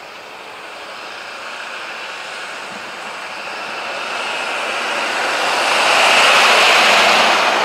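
Chevy diesel pickup truck at full throttle in a drag run, its engine and tyre noise growing louder as it closes in. It is loudest as it passes close by about six to seven seconds in, then starts to fade.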